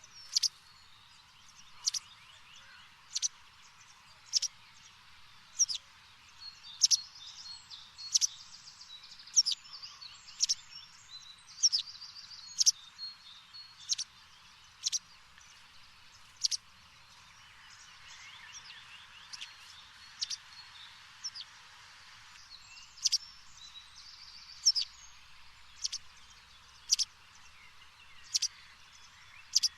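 Birds chirping: one bird repeats a sharp, high, falling chirp about once every second or so, with softer twittering and trills from other birds in between, over a faint hiss.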